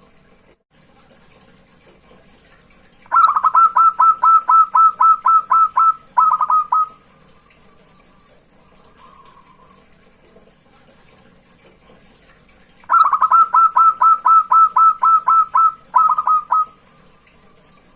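Zebra dove (perkutut) singing two bouts of its rapid, staccato cooing song, each a fast run of about a dozen clear notes, a brief break, then a few more. A faint short coo sounds between the bouts.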